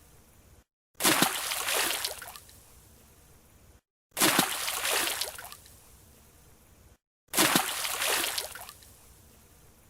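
A diver's entry splash into a pool as a looped sound effect: a sudden splash that fades into dripping and sloshing water over about two seconds, repeated three times with brief dead silences between.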